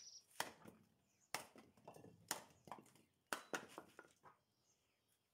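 Wooden knocks from splitting firewood by hand: four sharp knocks about a second apart, each followed by a brief clatter of smaller knocks.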